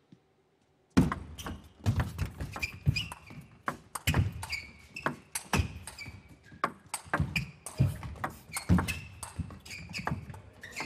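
Table tennis rally: the ball clicks off the rackets and bounces on the table in quick back-and-forth strokes, with sharp knocks and short pings. It starts about a second in.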